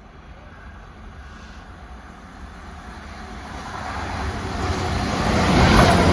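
CrossCountry Class 220 Voyager diesel multiple unit approaching and passing through at speed. Its engine and wheel noise grow steadily louder and are loudest near the end.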